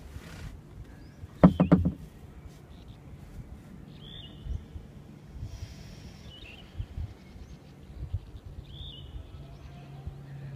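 A small bird calling, one short curving chirp about every two seconds. A brief loud burst of a person's voice comes about a second and a half in.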